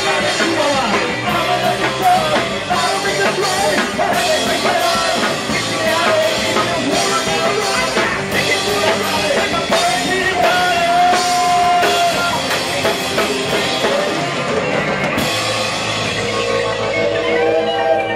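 Live rock band playing, with a drum kit pounding under amplified instruments. Near the end the drumming drops away, leaving held notes ringing.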